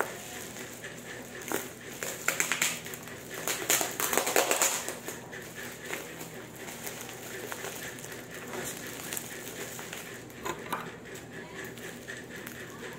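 Plastic parcel packaging crinkling and rustling as it is handled and opened by hand, in loud bursts during the first five seconds, then softer.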